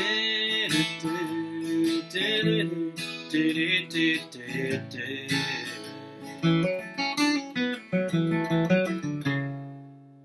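Flatpicked acoustic guitar playing a fast single-note bluegrass lick, a run of quick picked notes with pull-offs. Near the end it settles on one note that rings out and fades away.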